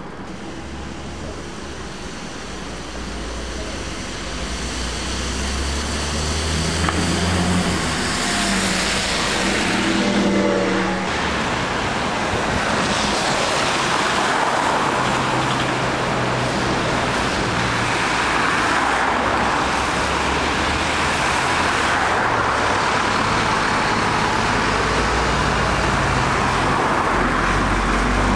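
Diesel double-decker buses running in city street traffic, the traffic noise growing louder over the first several seconds as engines pull away and rev. Near the end a red Routemaster double-decker passes close by with a deeper engine note.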